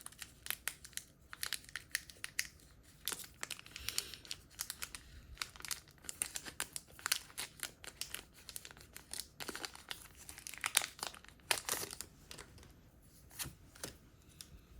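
A foil Pokémon booster pack wrapper being torn open and crinkled, with irregular crackles and rustles throughout.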